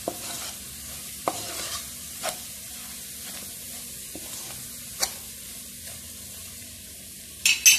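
Chopped onion, garlic, ginger and ground spices sizzling in ghee in a wok while a spatula stirs and scrapes through them: the sauté stage, frying the paste until crisp. A few sharp clicks break the steady sizzle, the loudest two near the end.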